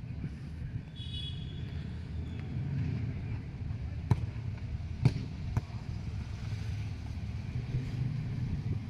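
Football kicked on an artificial-turf pitch: a sharp strike about four seconds in and a louder one a second later, then a lighter knock, over a steady low outdoor rumble.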